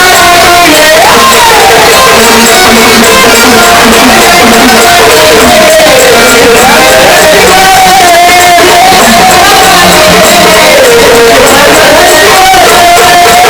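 Loud live gondhal folk devotional music over a loudspeaker system: a woman sings a high melody in long, sliding held notes over steady instrumental accompaniment, with crowd noise.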